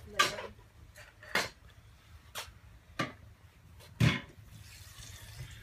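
Footsteps on a concrete floor: about five sharp taps and scuffs of shoes, roughly a second apart, the loudest near the end.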